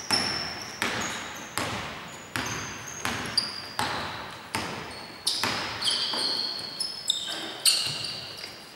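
A basketball being dribbled on a hardwood court at a steady pace, about one bounce every three-quarters of a second, each bounce echoing in a large, nearly empty hall. From about halfway there are also short high squeaks of sneakers on the floor.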